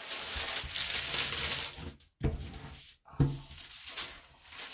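Hands rubbing and pressing the clear plastic protective film on a diamond painting canvas, a crackly crinkling and rustling as the canvas is flattened, with two short breaks near the middle.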